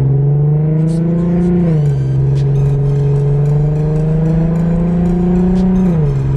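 Infiniti Q50 3.7's V6 with an Ark Grip cat-back exhaust on stock cats, accelerating, heard from inside the cabin. The engine note climbs steadily, drops with an upshift about two seconds in, then climbs again and drops with another upshift near the end.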